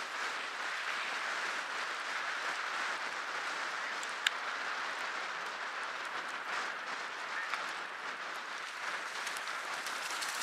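Small lake waves splashing and lapping steadily in shallow water around a wading hunter, with one sharp click about four seconds in.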